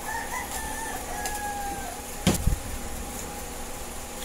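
A rooster crowing, one long wavering call lasting nearly two seconds, with a sharp thump a little after two seconds in.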